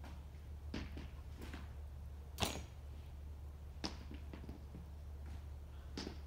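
Hockey stick blade tapping and clacking on a puck over hard ground, a few scattered taps with one sharper, louder crack about two and a half seconds in.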